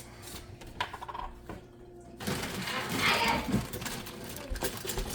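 Rapid clicking and scraping of a utensil against a mixing bowl, denser from about two seconds in, typical of beating pancake batter.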